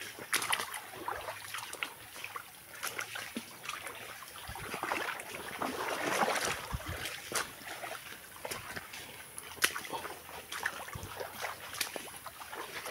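Footsteps splashing through shallow muddy water on a forest trail: uneven steps, growing louder around the middle.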